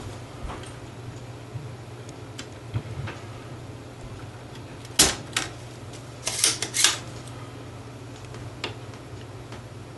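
Spring-loaded desoldering pump (solder sucker) firing with a sharp snap about five seconds in, followed by a quick cluster of clicks, as molten solder is drawn from a USB receptacle's joints on a circuit board. Faint ticks of tool handling and a low steady hum run underneath.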